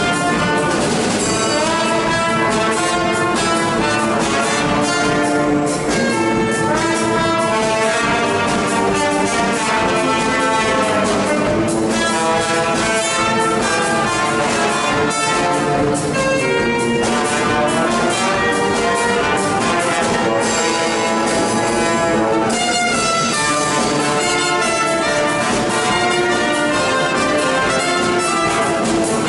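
A brass band of street musicians playing music without a break.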